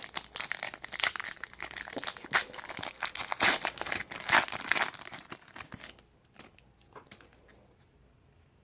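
Crinkly plastic wrapper of a baseball card pack being torn open and crumpled for about five seconds, then a few faint clicks.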